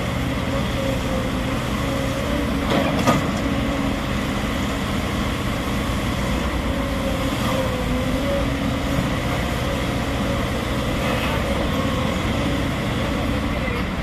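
SANY crawler excavator's diesel engine running steadily under working load as it digs crushed stone and swings its boom, with a brief clatter about three seconds in.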